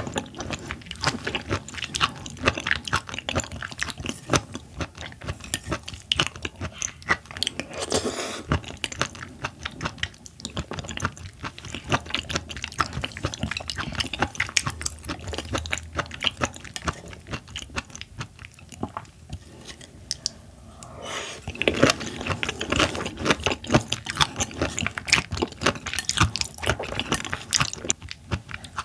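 Close-miked chewing and wet mouth sounds of someone eating seafood: a dense run of small wet smacks and clicks. It eases for a moment about eighteen seconds in, then picks up again.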